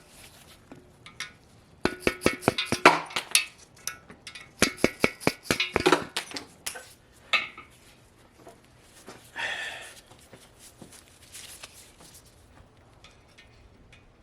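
Quick runs of sharp metal-on-metal strikes as the lifters of a 5.3 LS V8 are whacked out of their bores in the block, followed about halfway through by a brief rattle and then a few scattered clinks.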